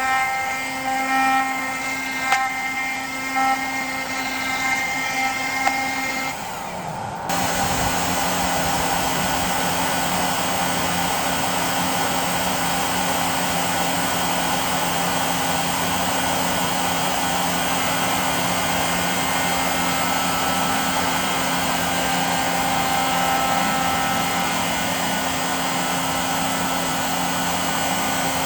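DIY CNC router spindle running while milling aluminium, a whine of several steady pitches that come and go. About seven seconds in it changes suddenly to a louder, steady rushing noise with a low hum.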